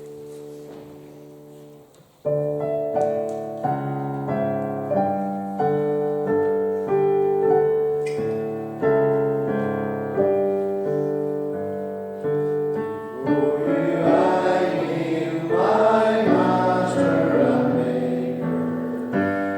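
Piano or keyboard playing a hymn introduction in a steady rhythm after a held chord, with voices joining in singing about two-thirds of the way through.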